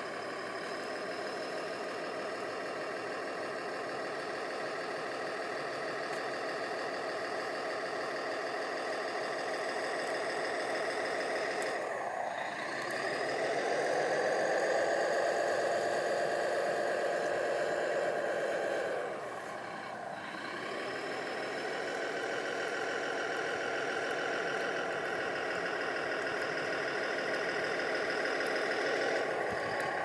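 Radio-controlled model bulldozer running, with a steady mechanical whine from its drive. About twelve seconds in the pitch dips and then rises into a louder stretch, which eases off again about seven seconds later before it settles back to its earlier note.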